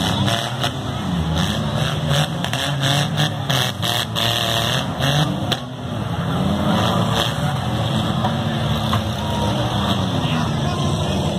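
Demolition derby cars' engines revving up and down together, with a run of sharp bangs from cars colliding, most of them in the first five or six seconds.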